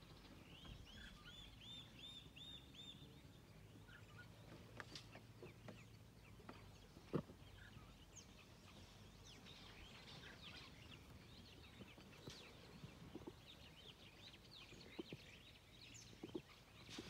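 Near silence with faint bird calls: a run of about seven quick, arching high chirps in the first three seconds, then scattered faint chirps and one sharp click about seven seconds in.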